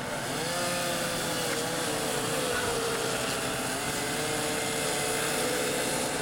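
Fire truck engine running steadily at high revs, a hum that wavers slightly in pitch, over a steady hiss.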